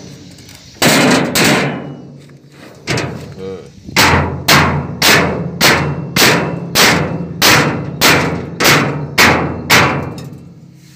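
Hammer blows on the steel plate of a dump-truck bed: two strikes about a second in, then a steady run of about a dozen blows, roughly two a second, each ringing briefly. The plate is being knocked down flush against the welded frame.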